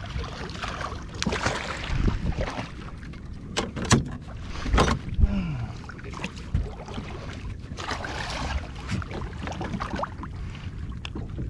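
Small boat on the open sea: steady water and wind noise around the hull, with a few sharp knocks about four and five seconds in.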